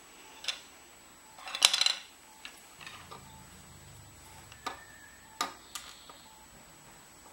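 Red 3D-printed plastic pump parts clicking and clattering as they are handled and a gear is fitted onto its housing: a quick cluster of clicks about a second and a half in, then a few single clicks.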